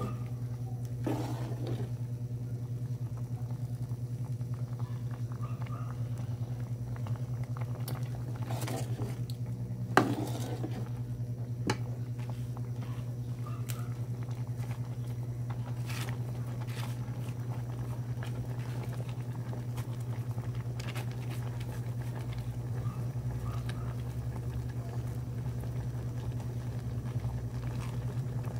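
Mung bean soup simmering in a metal pot, with faint bubbling over a steady low hum and a few sharp clicks of a metal ladle against the pot, the loudest about ten seconds in.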